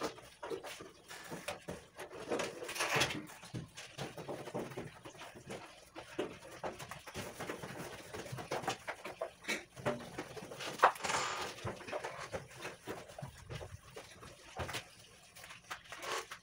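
Irregular knocks, clicks and scraping as the metal parts of a gas stove's oven are taken out and handled for cleaning, with one sharp knock about eleven seconds in.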